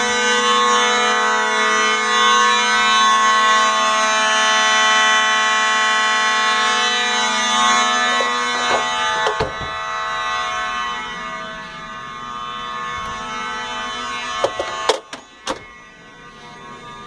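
Faraday/FOS 6120 fire alarm horns sounding in continuous mode: one steady, unbroken horn tone. It grows fainter about halfway through, and a few sharp knocks come near the end.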